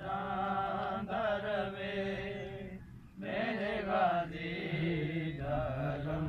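A man's voice chanting a noha, a Shia lament, in long held melodic lines with a short break about three seconds in.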